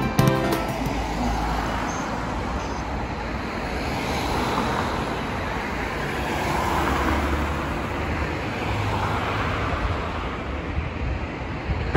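Road traffic: a steady rushing of passing cars with a low hum, swelling gently a couple of times as vehicles go by.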